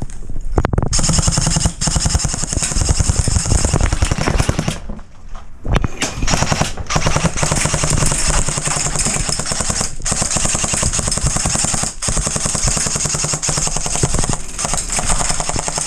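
Airsoft guns firing long strings of rapid shots, with short breaks about five, ten and twelve seconds in.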